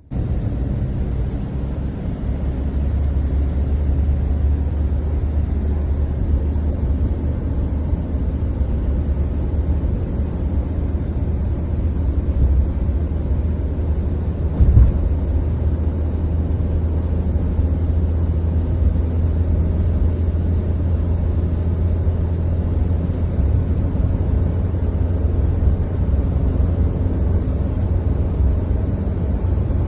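Car driving: a steady low road-and-engine rumble, with a brief thump about halfway through.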